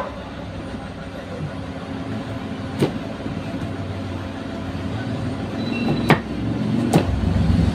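A motor vehicle's engine runs with a low rumble that slowly builds in loudness. Over it, a kitchen knife knocks sharply on a chopping board three times as carrots are cut.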